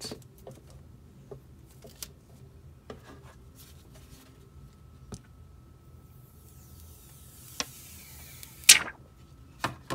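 Light clicks and taps of the phone being handled, then the protective plastic film being peeled off a TCL A1 smartphone's screen: a peeling hiss that falls in pitch over about two seconds and ends in a loud crackle as the film comes free, followed by a few sharp clicks.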